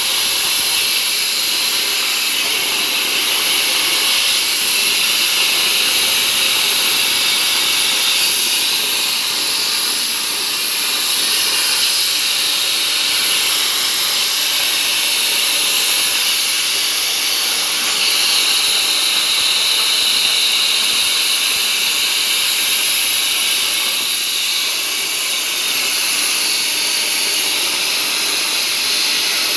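CNC plasma torch cutting 2 mm sheet steel: a loud, steady hiss of the plasma arc and air jet.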